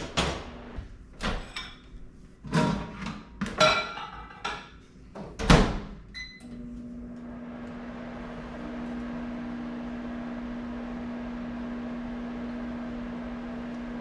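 Over-the-range microwave oven: a string of knocks and clicks from the door and keypad, a short beep about six seconds in, then the oven running with a steady hum and fan whir, a second hum tone joining a couple of seconds later.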